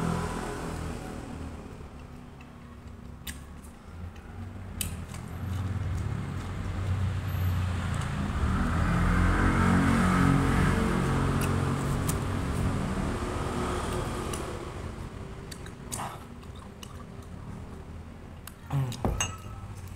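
A motor vehicle passing outside, swelling to its loudest about halfway through and then fading. Scattered sharp clicks of eating and handling come over it, and a short sip from a mug of tea near the end.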